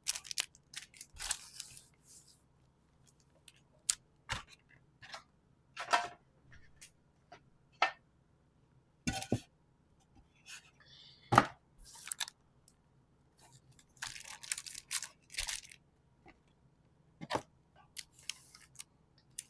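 Pokémon trading card booster packs being handled and opened: foil wrappers crinkling and tearing, with cards slid and tapped, in an irregular run of short crisp rustles and clicks.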